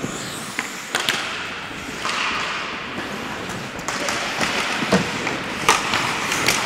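Ice hockey play on a rink: skate blades scraping the ice in a steady hiss, with several sharp clacks of sticks and puck, one about a second in and a cluster near the end.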